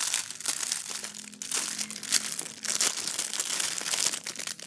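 Plastic packaging crinkling and rustling continuously as it is handled, the wrapping of a squishy toy being opened.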